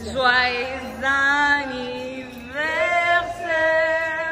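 Women's voices in long, high held notes, at least two at once, coming in three or four loud phrases with no words made out.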